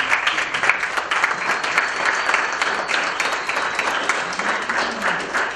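Audience applauding: many people clapping densely, easing off near the end.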